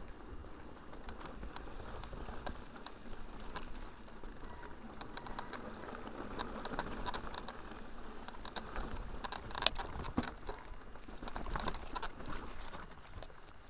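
Mountain bike riding down a rough, stony track: tyres rolling over gravel and rocks, with the bike rattling and many sharp knocks, getting busier about halfway through, with the loudest knock shortly after.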